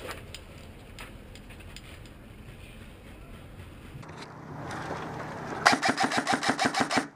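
Airsoft electric rifle firing a full-auto burst near the end: a loud, rapid, even rattle of about nine shots a second with a motor-and-gearbox whine, stopping just before the end. Before it, low rumbling handling and wind noise on the helmet-mounted camera.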